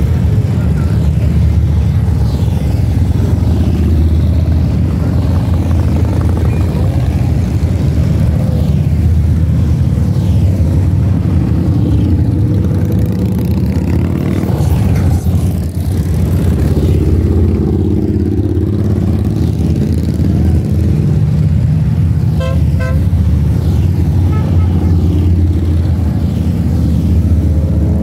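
Motorcycles, mostly big V-twin touring bikes, rumbling past in a steady stream. A short series of horn beeps sounds a few seconds before the end.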